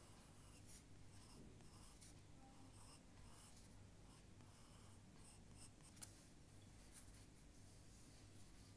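Faint scratching of a drawing tool on paper: a run of short, quick strokes, with a sharper tick about six seconds in.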